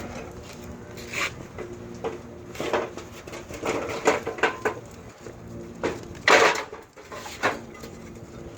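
Intermittent clattering and knocking of hard objects being handled, a few separate knocks over several seconds, the loudest a little past the middle.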